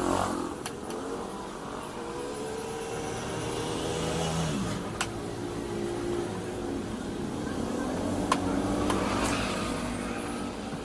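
A motor vehicle's engine running, its pitch rising and falling over several seconds, with a few sharp clicks.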